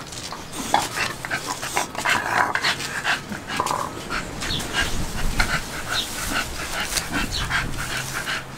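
Pocket American Bully dogs making short, irregular sounds as they move about their pen.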